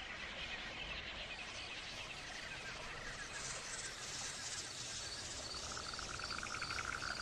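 Faint outdoor nature ambience of insects chirping over a soft hiss, with a rhythmic pulsing trill that sets in about three seconds in and grows more prominent near the end.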